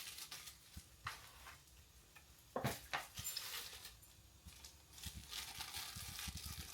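Faint handling noises of light-kit parts and packaging being unboxed: a few light clicks and knocks, then a soft rustle of packaging during the last couple of seconds.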